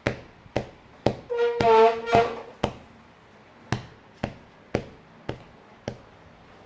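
Sharp taps or knocks repeating about twice a second, with a short gap about three seconds in. A toddler makes one short, high-pitched held vocal sound about a second and a half in.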